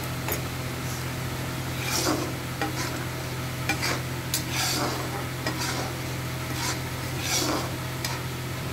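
A spatula stirring chickpea curry in a non-stick pan, with short scrapes against the pan every second or so over a steady low hum.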